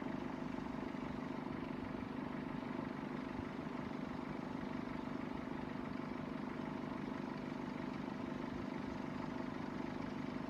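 A vehicle engine idling steadily, a constant hum with no change in speed.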